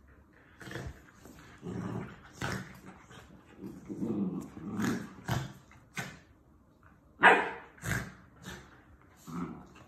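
Two puppies play-fighting, making short bursts of growls and yips, with the sharpest and loudest yip about seven seconds in.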